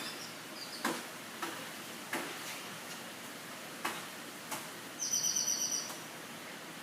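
Five sharp knocks spaced over the first few seconds, then a bird's rapid high trill lasting about a second near the end.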